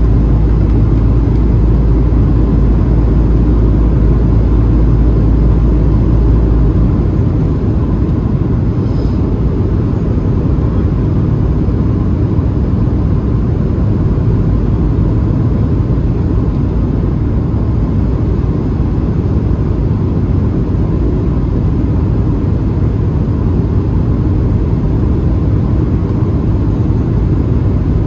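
Cabin noise of a Boeing 737-700 with its CFM56-7B engines running: a steady rumble and hiss with a faint steady tone over it. The deepest part of the rumble drops away about seven seconds in.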